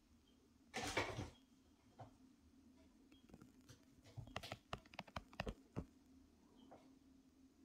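A Russian Blue kitten scrambling up a plush-covered cat tree, a brief scrape about a second in, then a quick run of light taps and knocks as it paws at a wand toy on the top platform.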